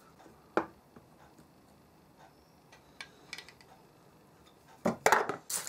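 Light metallic clicks and taps from a plane's cutting iron in a honing guide being handled on a diamond sharpening plate, with a louder, noisier clatter near the end.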